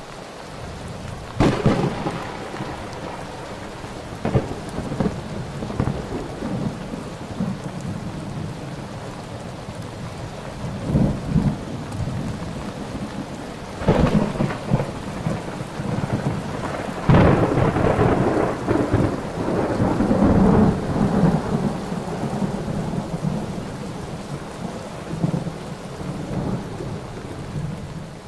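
Steady rain falling, with thunder rumbling and cracking about six times, the loudest clap about seventeen seconds in.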